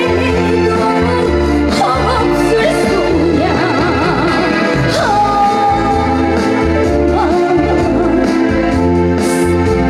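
Live trot music from a stage band, with sustained electronic-organ chords over a pulsing bass beat and a wavering lead melody line on top.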